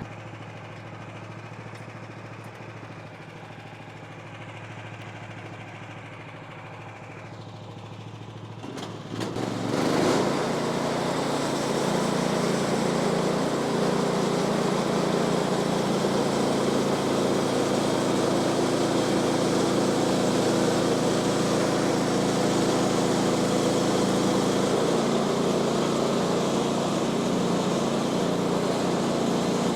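Woodland Mills HM126 sawmill's small gas engine idling steadily, then throttled up about nine seconds in and running steadily at high speed.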